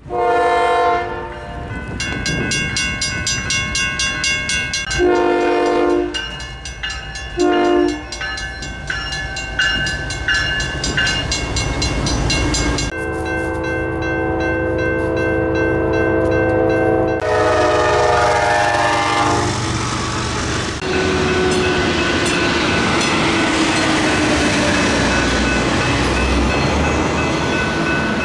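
Railroad grade crossings in action: crossing warning bells ring in a fast, even ding while locomotive air horns sound chords, some as short blasts and some held for several seconds. In the last stretch a train runs through with a steady rumble and a low tone that slowly falls in pitch.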